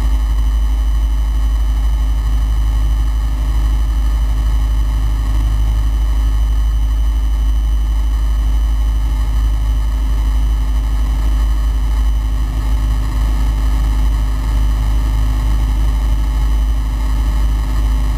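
Flight Design CTLS's Rotax 912 four-cylinder engine and propeller heard inside the cockpit in flight: a loud, steady drone with a low rumble and an even hum that holds constant.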